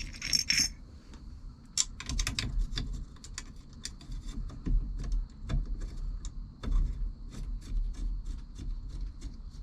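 Small metal clicks, taps and clinks from steering wheel hardware and bolts being handled and fitted by hand, irregular, with several sharper knocks.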